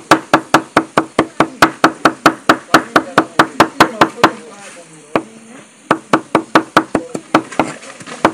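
Knife chopping fast on a cutting board, sharp regular strokes about five a second, breaking off for about a second and a half midway and then resuming.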